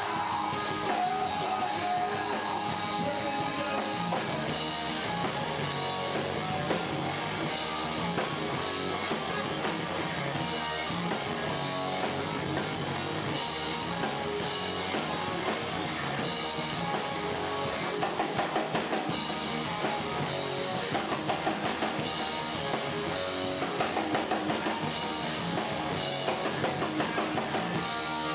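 Live rock band playing an instrumental passage: electric guitars over a drum kit, with stretches of fast repeated notes in the second half.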